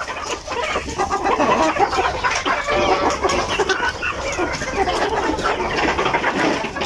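Domestic chickens clucking, many short calls overlapping one another without a pause.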